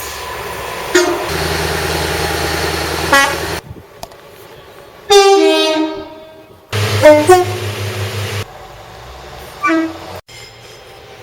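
Train horns sounding in a string of separate recordings joined with abrupt cuts: several short blasts and one longer, loudest two-tone blast about five seconds in. Some are heard over the steady hum and running noise of the passing train.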